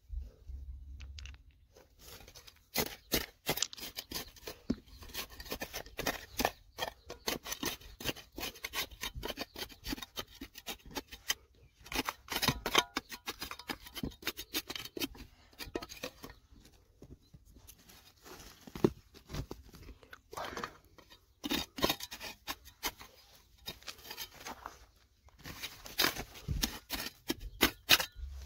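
Digging in stony ground: irregular runs of quick scrapes, crunches and clicks, broken by short pauses.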